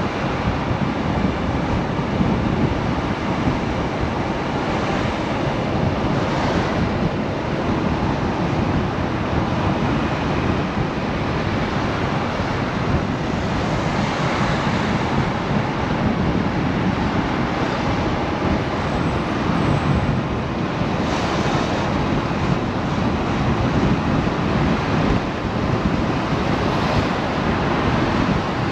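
Steady rush of wind buffeting the microphone on a moving motorcycle, mixed with the bike's engine and road noise while it rides along at street speed.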